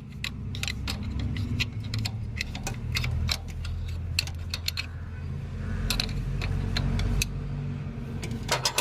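Metal tools clinking and rattling against the brake rod and its adjuster while the brake of a Sonalika tractor is adjusted: a run of quick, irregular sharp clicks, over a low steady hum.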